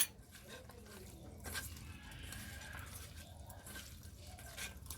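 Hands kneading boneless chicken pieces in a wet spice marinade of ginger-garlic paste, lime juice and spices: faint, irregular wet squishing.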